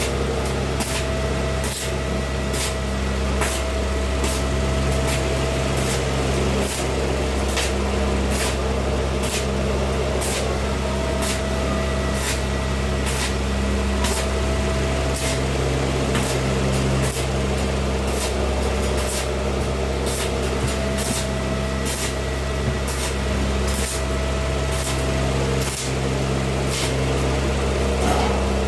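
Electric arc welding: a steady hiss and buzz with a low mains hum and frequent sharp crackles from the arc, cutting off at the very end.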